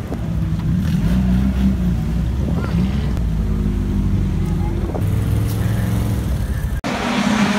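Engines of compact hobby stock race cars running at low speed as the cars roll slowly past, the pitch shifting a little as they move. Near the end the sound cuts off sharply to a different engine sound with more hiss.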